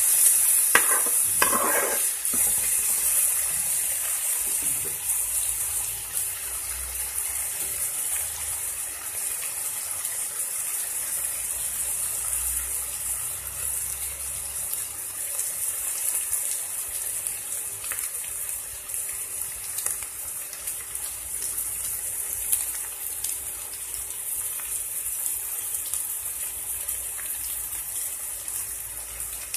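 Chopped onions and green chillies sizzling steadily in hot oil in a metal pan. A spoon stirs and scrapes the pan during the first couple of seconds.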